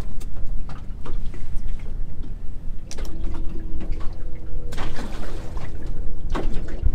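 Water splashing and dripping aboard a small boat, with scattered clicks and knocks of handling and a steady rumble of wind on the microphone. A faint steady hum joins from about three seconds in and stops about a second before the end.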